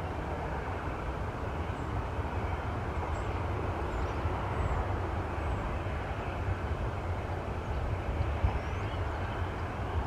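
Jet aircraft engines running, a steady low roar that grows slightly louder.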